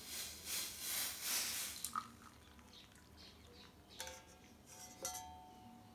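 Hot coffee poured through a steel mesh strainer into a ceramic mug: a faint splashing pour for about two seconds, then two light metallic clinks about a second apart, each ringing briefly.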